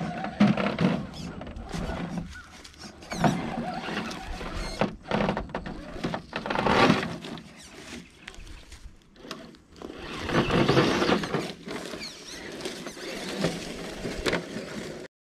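Element Enduro Trail Walker RC crawler's small electric motor and gears whining in irregular short bursts as it drives over dirt and rock, with crunching of dry leaves.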